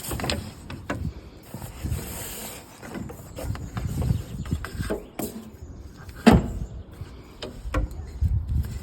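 Irregular clicks and knocks of equipment being handled, the loudest a sharp knock about six seconds in.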